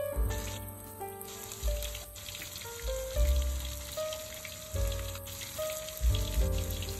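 Background music with a melody and repeated bass notes, over a steady sizzle of whole fish frying in oil in a wok.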